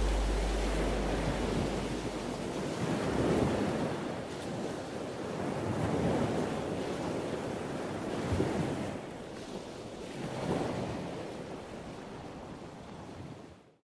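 Sea surf washing onto a beach, swelling and ebbing every two to three seconds, with wind on the microphone. A low lingering note of background music fades out in the first couple of seconds, and the sound cuts off suddenly near the end.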